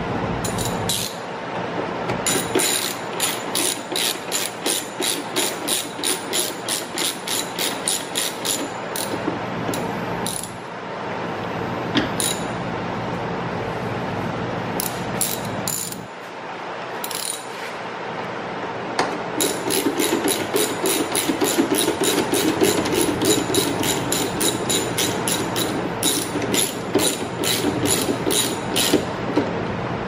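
Hand ratchet clicking in long runs of quick, even clicks, about three a second, with short pauses between runs, as the door lock actuator's mounting screws are driven in and tightened.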